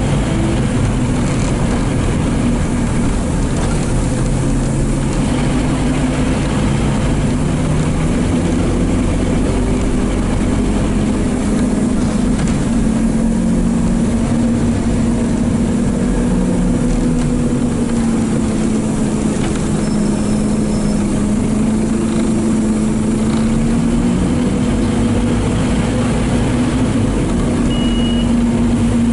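Scania N230UD double-decker bus's 9-litre five-cylinder diesel engine heard from inside the passenger saloon while the bus is under way. The engine note rises and falls as the bus pulls away, runs on and eases off.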